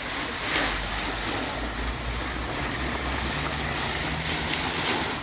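Water jets of a dry-deck splash fountain spraying up from floor grates and falling back, making a steady hissing splash. A low rumble of wind on the microphone sits underneath.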